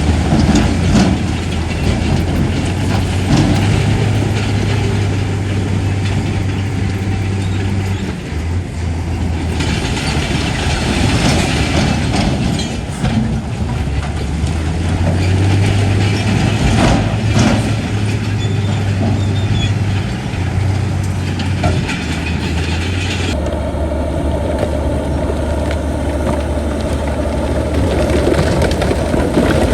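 Bulldozer's heavy diesel engine running under load, with metal tracks clattering and a few sharp knocks. The engine note shifts a few times, and the grinding haze above it drops away about three quarters of the way through.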